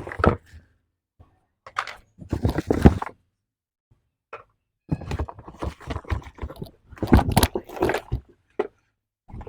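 Irregular thunks, knocks and scrapes of objects being handled, in clusters with short silent gaps.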